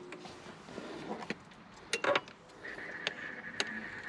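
Renogy 2000 W inverter under near-full load: a high steady whine that cuts out with a click at the start and comes back nearly three seconds in, with sharp clicks and knocks between, the loudest a cluster about two seconds in. The inverter is dropping out on low supply voltage.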